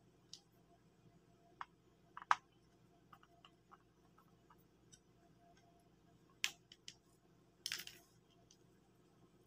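Faint, scattered clicks and taps of screwdrivers and the plastic parts of a Kyocera FS6525 drum unit being handled while its cleaning blade is removed. A short rustle comes near the end.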